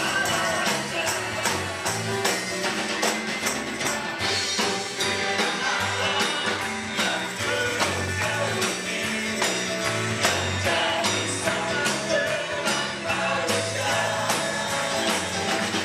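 Live Indonesian gospel praise song: a worship team singing over a band with a steady beat, with tambourines jingling along.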